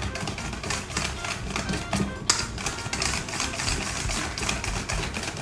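Wire balloon whisk beating a thick cream in a stainless steel bowl: fast, steady clicking and scraping of the wires against the metal, with one sharper knock a little over two seconds in.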